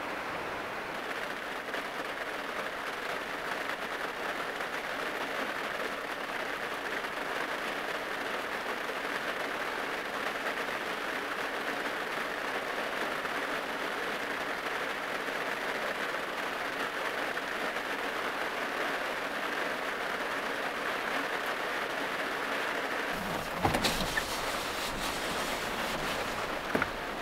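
Heavy rain on the roof and windows of a small van, heard from inside as a steady hiss. Near the end come a few knocks and thumps as someone moves about inside the van.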